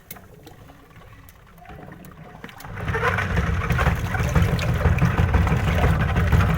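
Semi-automatic washing machine's wash tub starting up about three seconds in and churning water with dishes inside: a loud, steady rumbling churn.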